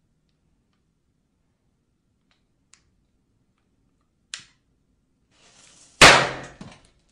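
A small firecracker going off with one sharp, loud bang about six seconds in, dying away over nearly a second, just after a brief hiss. A short sharp click comes a couple of seconds before it.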